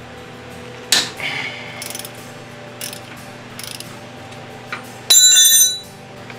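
Ratchet wrench undoing the 17 mm bolts that hold a steering gearbox to the frame: a few scattered clicks, then a loud burst of fast ratcheting lasting under a second, about five seconds in.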